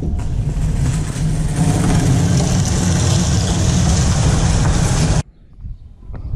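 A motor vehicle running close by, a loud steady rumble with hiss over it, that cuts off suddenly about five seconds in, leaving quiet.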